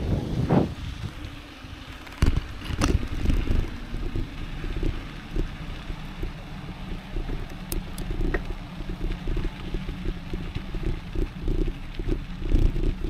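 Mountain bike rolling on a dirt and gravel forest road: steady tyre rumble with wind on the microphone, and the bike rattling and clicking over bumps. A few sharp knocks come about two and three seconds in.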